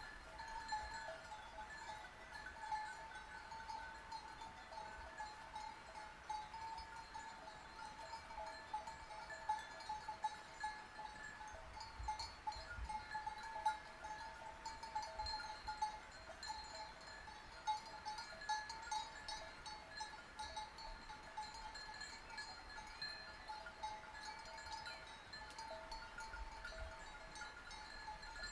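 Sheep bells clanking and ringing continuously in an uneven rhythm, many small bells overlapping.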